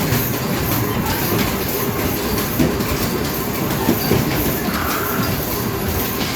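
Basketballs on an arcade basketball shooting machine, thudding against the board and hoop and rolling back down the return ramp in a steady, unbroken rumbling clatter during fast play.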